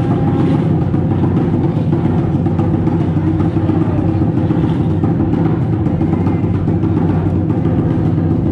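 Drum-led music with a fast, steady beat and low sustained tones underneath.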